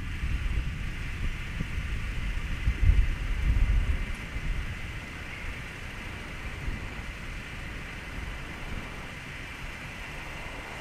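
Thunder rumbling low after a lightning flash, loudest about three seconds in and dying down by about five seconds, over a steady background hiss.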